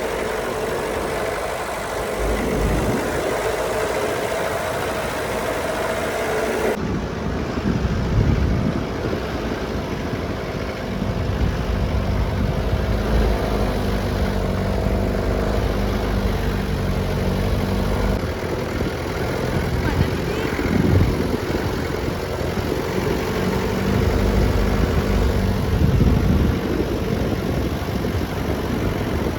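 Daihatsu Taft F50 jeep's engine running during off-road driving, its note coming and going over a rough, noisy background.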